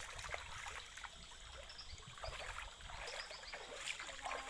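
River water trickling and lapping around a wooden canoe, with a few small splashes and knocks.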